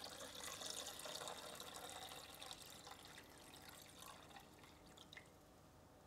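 Faint sound of water being poured from a plastic pitcher into an iced tea maker's water reservoir, tapering off to a few drips near the end.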